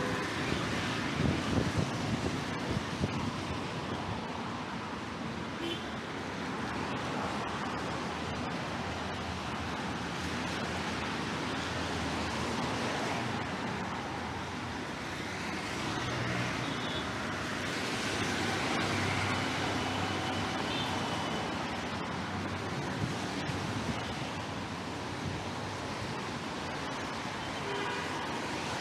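Steady hiss of rain and wind mixed with road traffic on a city street. Wind buffets the microphone in the first couple of seconds.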